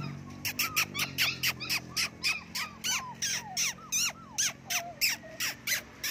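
Puppy yelping in a rapid string of short, high squeals, each falling in pitch, about three or four a second.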